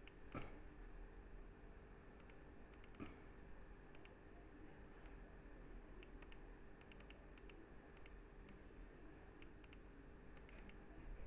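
Faint computer mouse and keyboard clicks, scattered and often in quick pairs or threes, with one louder knock just after the start, over a low steady hum.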